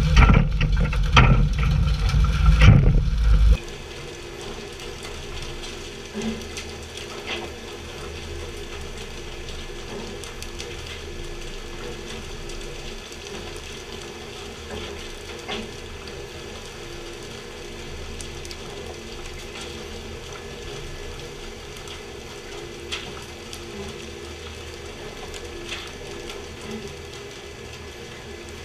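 Loud rushing of water spray and wind for the first few seconds, then an abrupt change to a steady mechanical hum: a fishing boat's engine and deck machinery running, with a low drone, a steady tone and occasional faint clicks.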